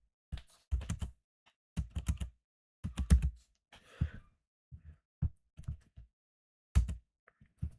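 Computer keyboard keys typed irregularly, a dozen or so clicks each with a low thump, and a breath about four seconds in.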